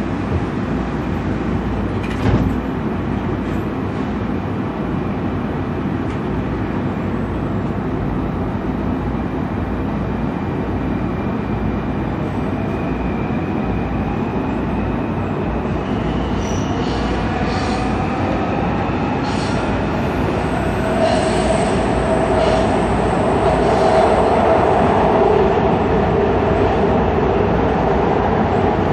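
WMATA Metro Breda/Alstom rehab rail car running through a tunnel: steady wheel-on-rail rumble, with a whining tone gliding up in pitch in the second half as the noise grows louder.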